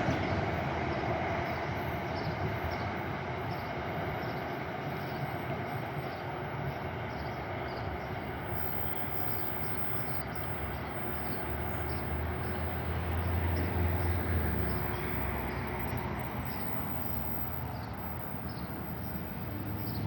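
Passenger train running along the rails, a steady rumble of wheels on track that swells for a moment about two-thirds of the way through.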